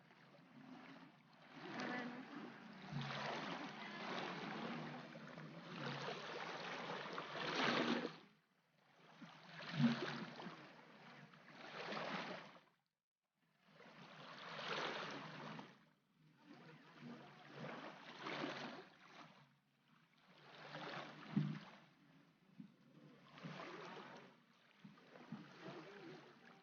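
Small waves washing onto a sandy beach in repeated surges, each a second or few long, with short lulls between them.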